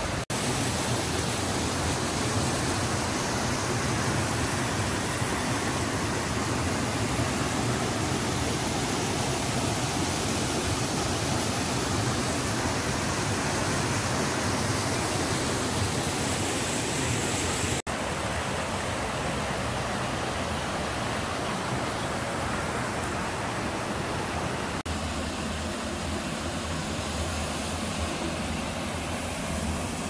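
Steady rush of water from small waterfalls and cascades pouring over rocks into pools. The sound breaks off for an instant about eighteen and twenty-five seconds in, and after each break the water sounds slightly different.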